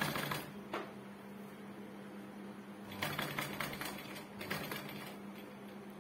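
Sewing machine stitching in short bursts, its needle clattering rapidly as gathers are sewn into a skirt cloth. One burst comes at the start, then two more about three and four and a half seconds in, with a steady low hum underneath.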